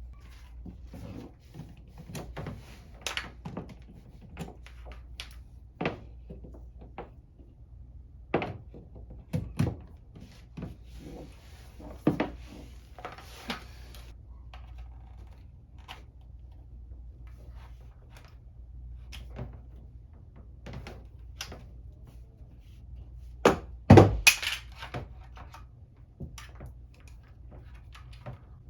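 Handling noises from installing a power strip under a piece of furniture: scattered knocks, clicks and thunks, with one loud thump and clatter near the end, over a steady low hum.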